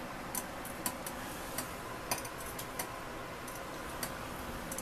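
Glass steam distiller heating its flask of water toward the boil: a steady hiss with irregular sharp ticks, roughly every half second.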